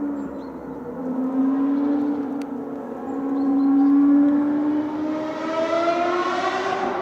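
Ferrari racing car engine heard from a distance. Its pitch holds fairly steady, then climbs from about five seconds in as the car accelerates.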